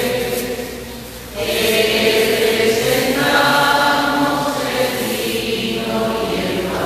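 Voices singing a slow hymn during the offertory of the Mass, holding long notes, with a short pause for breath about a second in.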